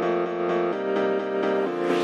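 Background music with steady repeated notes that change chord about a third of the way in. A hiss swells in near the end.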